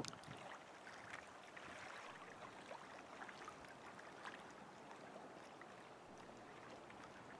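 Near silence: a faint even hiss with scattered soft ticks, and one slightly louder click at the very start.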